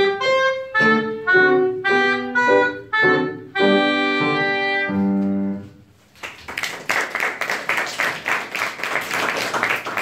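Oboe with piano accompaniment playing the closing phrase of a piece, ending on a held note about halfway through. After a brief pause an audience breaks into applause.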